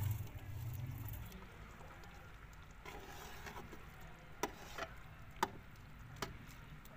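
Rice tipped from a plate into a metal pot of boiling water, then stirred with a metal spatula. The spatula clinks sharply against the pot about four times in the second half.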